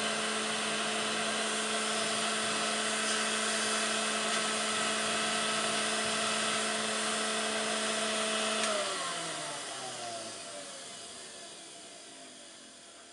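1950s Vactric W404 cylinder vacuum cleaner running with a steady whine, then switched off about nine seconds in, its motor winding down with a falling pitch and fading out.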